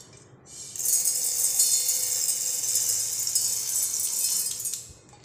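Dry-roasted urad dal poured from a kadhai into a stainless steel mixer-grinder jar, the grains hissing and rattling onto the steel for about four seconds, starting about a second in.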